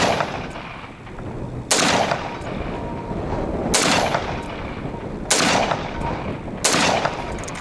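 Ruger AR-556 semi-automatic 5.56 mm rifle firing five single shots, spaced about one and a half to two seconds apart: slow aimed fire from the standing position.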